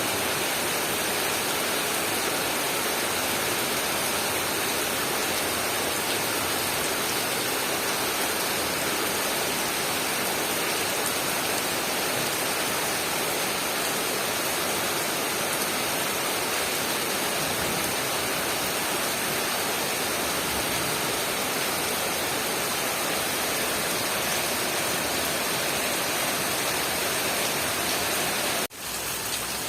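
Steady heavy rain, a dense even hiss with no separate drops standing out. About a second before the end it cuts out for an instant and comes back a little quieter.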